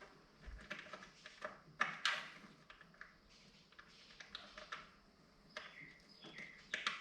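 Scattered light clicks and taps of small metal parts and hand tools being handled, with a sharper knock about two seconds in.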